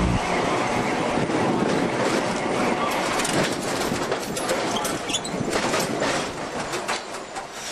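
Electric tram running on its rails: steady wheel-and-track noise with a run of sharp clicks and rattles over the rails in the middle, growing gradually quieter.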